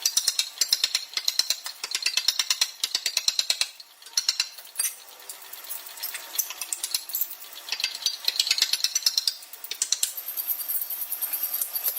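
Power hammer striking steel in rapid runs of sharp blows, about eight a second, stopping and starting several times.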